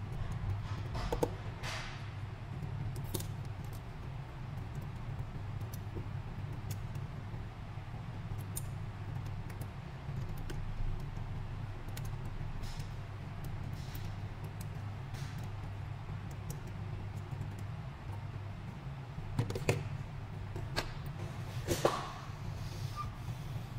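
Light clicks and taps of small metal tools being handled at a workbench, scattered irregularly and louder a few times, over a steady low electrical hum.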